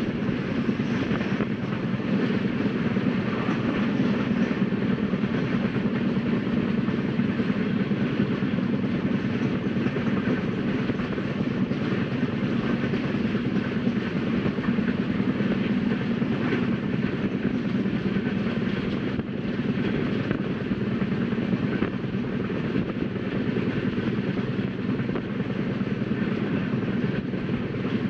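Rajdhani Express passenger train running steadily at speed: an even low rumble and rush from the wheels on the rails, with a few faint clicks.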